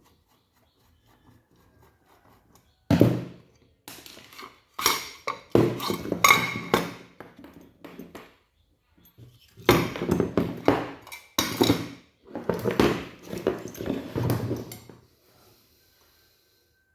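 Clattering and knocks of small metal parts and tools being handled during work on the electric fish shocker, in several bursts with pauses between them.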